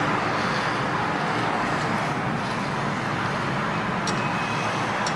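Steady, even background noise like air or fan hiss, with two faint light clicks near the end.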